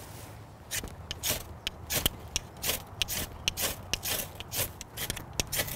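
Quick, irregular scraping and rubbing strokes, a few a second, each short and sharp.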